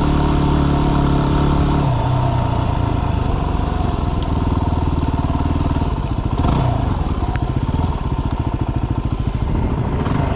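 Yamaha WR250R's single-cylinder four-stroke engine running under way, dropping in revs about two seconds in and then running on at lower revs with an uneven pulse.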